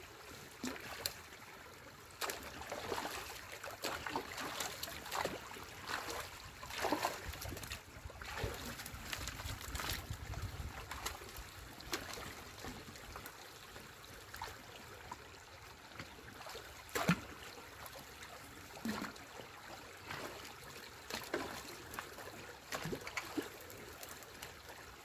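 Stream water trickling and gurgling, with many short splashes and knocks scattered through it.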